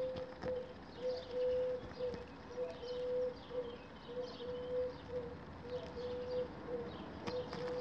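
Outdoor ambience: small birds chirping in short falling notes, over a low hooting note repeated about twice a second.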